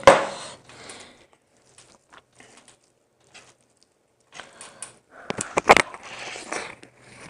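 A sharp knock at the very start, then fingers tearing at the crisp skin of a whole deep-fried chicken with scattered small crackles. About five seconds in comes a loud crunchy bite of fried chicken and biryani rice close to the microphone, followed by chewing.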